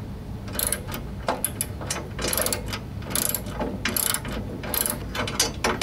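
Socket wrench ratchet clicking in repeated strokes, a burst of pawl clicks roughly every second, as it tightens the nut on a snowblower auger's shear pin.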